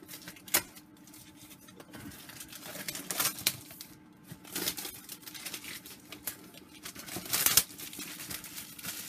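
Clear plastic shrink-wrap being pulled and peeled off a cardboard graphics-card box, crinkling and tearing in irregular bursts.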